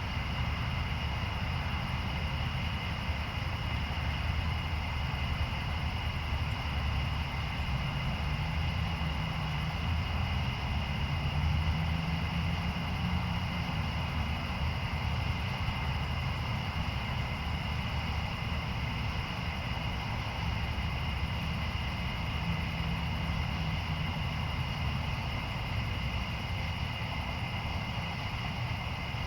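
Steady outdoor night ambience: a continuous low rumble with a constant high-pitched chorus of insects above it, and no distinct thunder claps.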